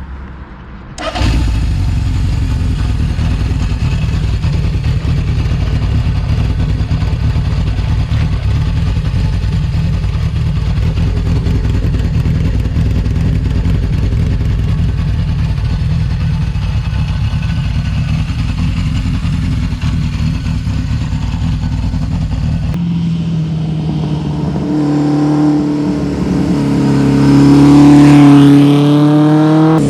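1978 Honda CB750 F2's SOHC inline-four motorcycle engine running with a fast, steady pulse, coming in suddenly about a second in. In the last several seconds its pitch rises and falls as the engine is revved.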